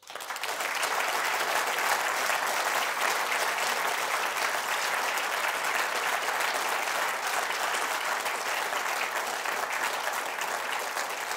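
Audience applauding, swelling within the first half second and holding steady, thinning slightly near the end.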